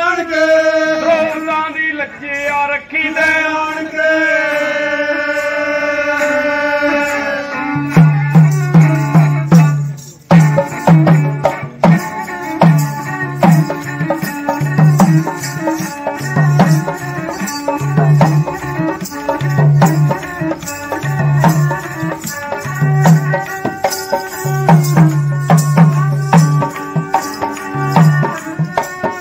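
Punjabi folk music: a bowed string instrument plays a melody in long held notes. About eight seconds in, a dholak joins with a steady beat of deep bass strokes and sharp slaps.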